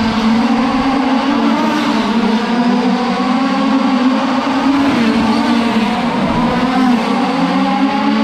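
A pack of 1/5-scale gas-powered RC dirt oval race cars running together, their small two-stroke engines buzzing. The engines' pitch rises and falls repeatedly as the cars throttle on and off through the turns.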